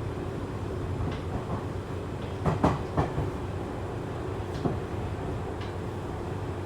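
Seibu 2000-series electric train running, heard inside a motor car: a steady low rumble with wheels clacking over rail joints, including a quick cluster of louder clacks about two and a half seconds in.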